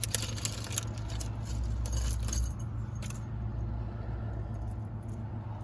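Small metal bolts and hardware clinking and jingling together as they are handled, busiest in the first three seconds, over a steady low hum.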